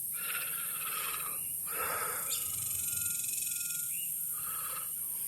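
Outdoor wetland ambience: a steady high hiss with a few short, faint animal calls, one of them a thin held tone near the middle.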